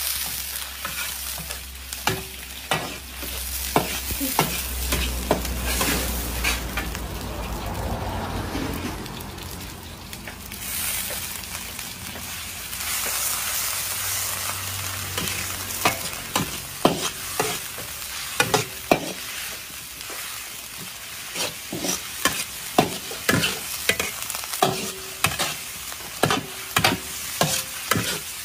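A long metal ladle scraping and clanking against a large wok as diced mixed vegetables and meat are stir-fried, over a steady sizzle of hot oil. The clanks come in quick runs, thickest in the second half.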